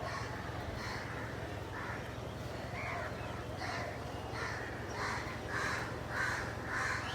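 A crow cawing over and over, about ten harsh caws that come faster and a little louder toward the end.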